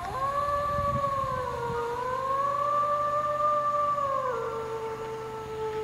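A single long canine howl that starts abruptly and holds a steady pitch with a slight dip, then drops a step about four seconds in and slides slowly lower. It sounds exactly like a wolf or dog, and the commentator takes it for a howl added in post-production rather than recorded on the spot.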